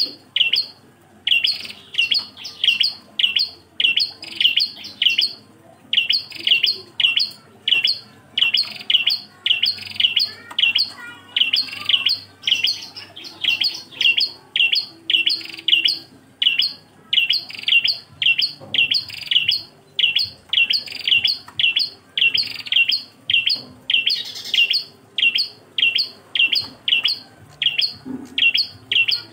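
A single prenjak klawu, a small Indonesian warbler, calling on and on: a long run of short, sharp chip notes, about two a second, broken by brief pauses now and then.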